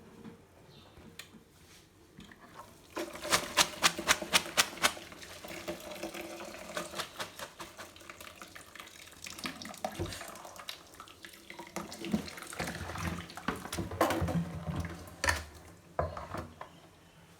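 Water running and splashing into a pot or sink during cooking. About three seconds in there is a quick run of about eight sharp clicks, and a few knocks follow later.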